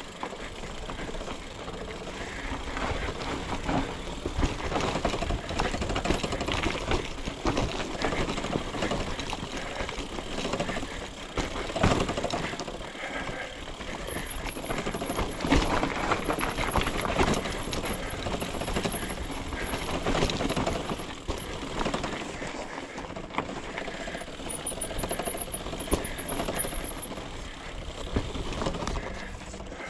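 Mountain bike rattling and clattering as it bumps down a steep, rough dirt track, with a steady rush of noise and many sharp knocks from the frame and tyres over the uneven ground.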